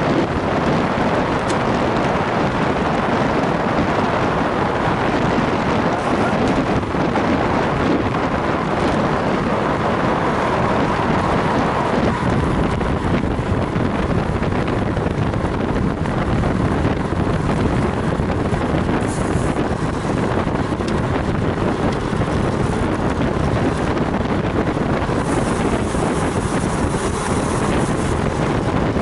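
Steady wind rushing over the microphone of a camera on a moving road bike.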